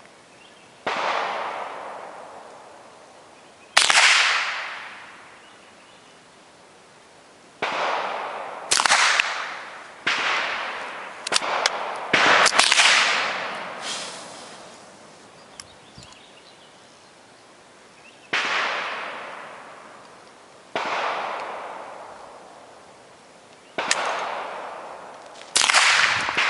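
Gunshots on a shooting range: about a dozen sharp cracks at irregular intervals a second to a few seconds apart, each trailing off in a long echo.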